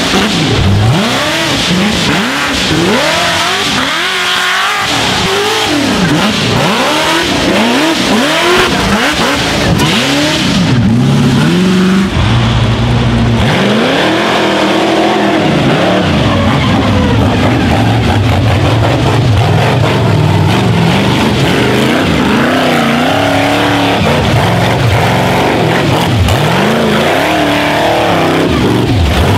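Rock bouncer race buggy engines revving hard on and off, the pitch swinging up and down again and again as the throttle is worked on a steep dirt climb, with a stretch in the middle held high and steady at full throttle.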